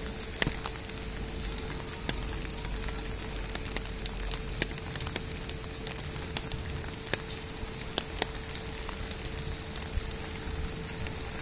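Light rain falling: a steady hiss with scattered sharp ticks of drops at irregular spacing, over a constant low hum.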